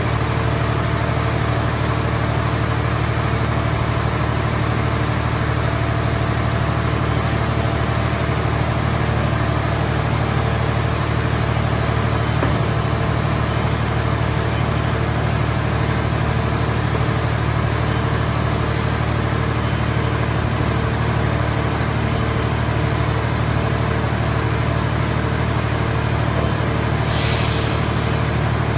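Engine of a mobile car baler machine running steadily at constant speed, with a short faint hiss near the end.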